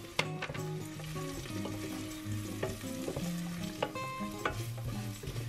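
Wooden spoon stirring fried onion and paprika in oil in a stainless steel pot: a soft sizzle, with a few knocks of the spoon against the pot. Soft background music with held notes plays underneath.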